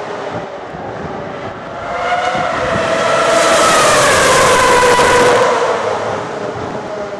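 Ferrari Formula One car's high-revving engine passing by: it grows louder over the first few seconds, is loudest about four seconds in, then fades with a falling pitch.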